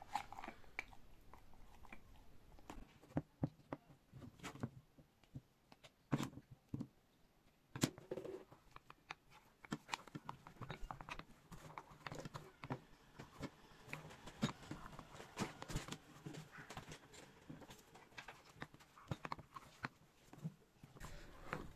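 Wooden stick pressing spiced cucumber pickle down into a glass jar: irregular soft clicks and knocks as the pieces are packed tight to squeeze out air gaps.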